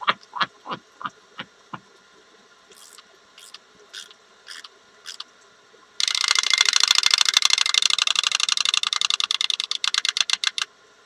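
Novelty chattering teeth toy clattering in a fast, loud run of clacks for about five seconds, starting about six seconds in, after a few scattered short clicks.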